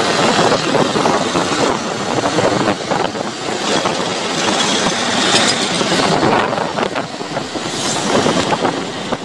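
Motorcycle tricycle under way, heard from inside its sidecar: the engine runs steadily under road and wind noise, with a dense, rough rattle throughout.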